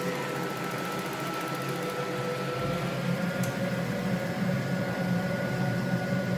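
Viessmann Vitopend 100 gas boiler running in a test after its three-way valve was cleaned of scale and reassembled. There is a steady mechanical hum, with a thin whine that slowly rises a little in pitch.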